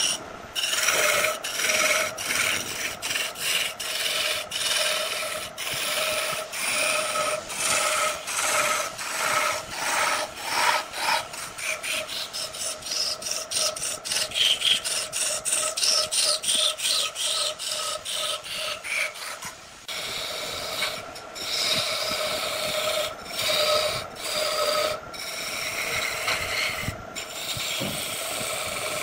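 Wood lathe running with a steady hum while a turning tool scrapes and cuts the spinning wood in short, uneven strokes; the cutting stops briefly about twenty seconds in, then resumes.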